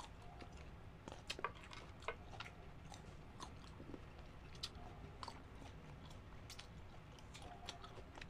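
Close-miked chewing and biting of mango slices dipped in shrimp paste (bagoong), heard as scattered small wet clicks and mouth noises.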